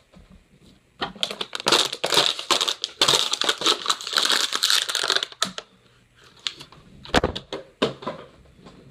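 Loud crackling, rustling noise of hands and clothing rubbing right against the phone's microphone for about four seconds, then a few soft clicks and knocks.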